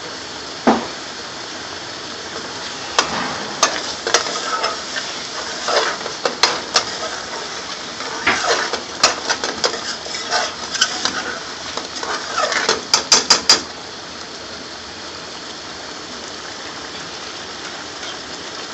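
Thick curry sauce bubbling in a metal pan while a metal spoon stirs it, scraping and clinking against the pan, with a quick run of taps after about thirteen seconds. The stirring then stops and only the steady bubbling goes on.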